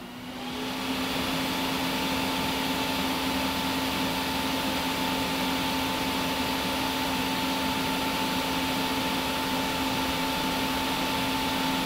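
Truck engine at high idle turning a PTO shaft-driven underdeck air compressor as the system builds air pressure. A steady mechanical hum with a constant whine swells over the first second as the PTO engages and the RPM rises, then holds even.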